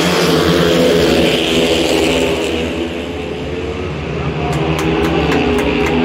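A pack of long-track racing motorcycles with 500 cc single-cylinder engines running flat out together as they race through a bend and down the straight. The engine noise eases slightly about three seconds in as the bikes move away down the far straight, then swells again.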